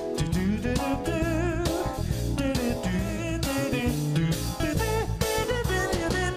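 Background music: a song with guitar and a singing voice over a steady beat.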